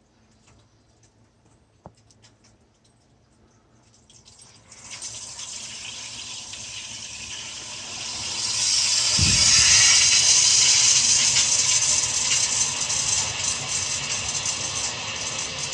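Near silence for about four seconds, then water rushing and hissing through the plumbing as the line is recharged after a valve replacement. It grows louder to a peak about halfway through and stays strong, with a brief low thud just before the peak.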